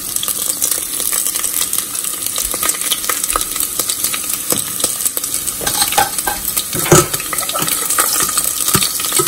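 Sliced garlic and whole dried red chillies sizzling in hot oil in a stainless steel pot, the tempering (baghar) for a dal. A slotted metal spoon stirs them, scraping and clicking against the pot, with one louder knock about seven seconds in.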